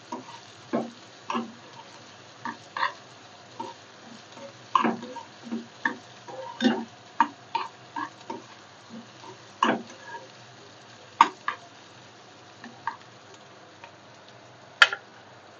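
Thickly chopped onions being stirred in hot oil in a kadhai, the utensil scraping and knocking against the pan at an irregular one or two strokes a second over a faint steady sizzle, with one sharp, louder knock near the end. The onions are being fried only lightly, left half-raw.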